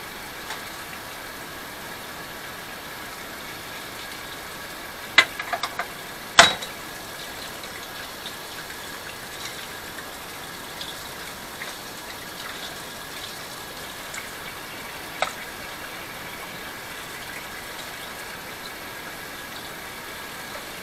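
Knife and mushrooms being handled at a kitchen sink: a few sharp clicks and knocks about five to six and a half seconds in, the last one loudest, and one more around fifteen seconds, over a steady hiss.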